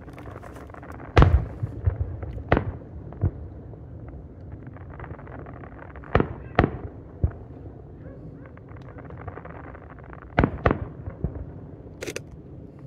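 Aerial firework shells bursting in a series of sharp booms at irregular intervals. The loudest comes about a second in, and later pairs follow about half a second apart. A brief high hiss comes near the end.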